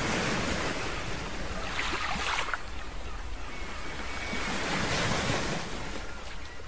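Wind rushing over the microphone with lake water lapping, swelling and easing in gusts over a steady low rumble.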